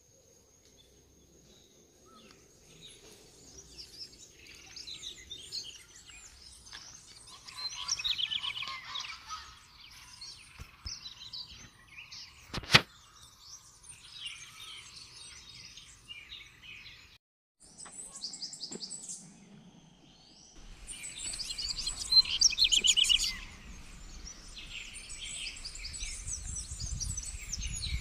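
Several birds chirping and trilling in quick, overlapping calls, with a single sharp click about halfway through and a low rumble underneath in the last third.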